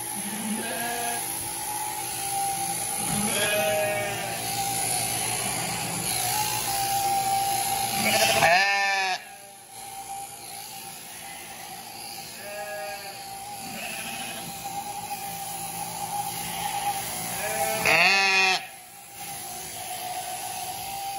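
Sheep bleating again and again, with two loud long bleats about eight and eighteen seconds in, over the steady whine of an electric sheep-shearing handpiece.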